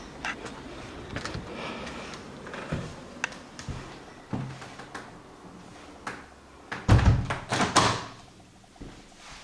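A front door being handled, with light knocks and footsteps, then shut with a heavy thud about seven seconds in, followed by a few smaller knocks.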